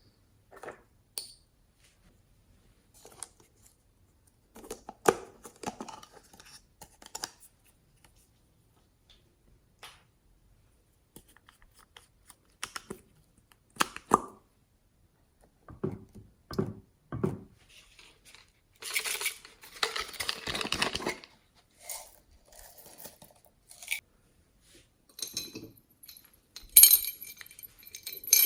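Glossy slime being handled and mixed by hand: irregular sticky crackles and squelches, with a denser run of crackling about two-thirds through and light clinks near the end.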